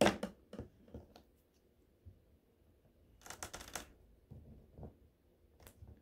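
Paper-craft handling sounds: a sharp click at the start and a few light ticks, then a short rustle of construction paper about three seconds in as the glued paper pieces are pressed together, with scattered light taps near the end.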